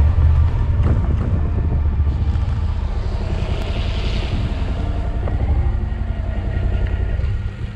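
Motorcycle engine running while riding, heavy with wind rumble, falling away near the end.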